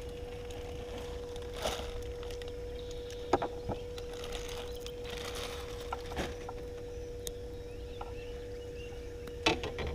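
A steady one-note hum from a small electric motor on a bass boat, over a low rumble, with a few scattered knocks and clicks from handling gear in the boat.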